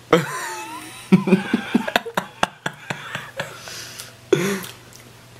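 Wordless vocal reactions: a wavering hum with its pitch sliding up and down, then a run of short giggling bursts mixed with clicks, and another brief hum about four seconds in.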